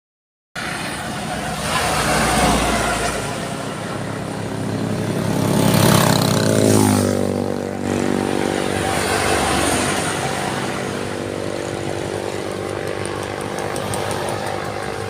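Road traffic: a motor vehicle's engine runs as it passes, its pitch falling about halfway through, then runs steadily.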